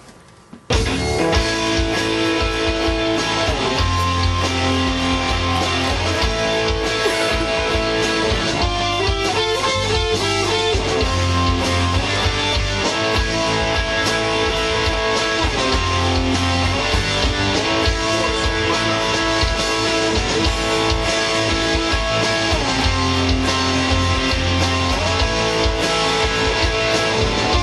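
Rock music led by electric guitar, with bass and a steady beat, cutting in abruptly just under a second in and playing on at a steady level.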